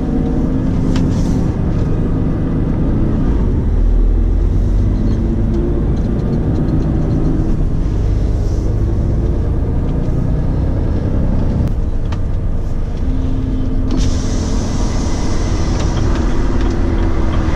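Heavy truck's diesel engine running under way, heard from inside the cab as a steady low drone with road noise. A steady engine tone rides on it at the start and again near the end, and a hiss joins about fourteen seconds in.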